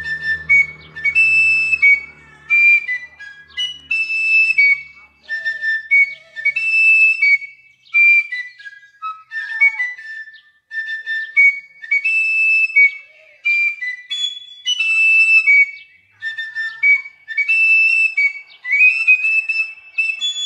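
A fife played solo: a high-pitched melody of short stepped notes in phrases of a second or two, with brief pauses for breath between them.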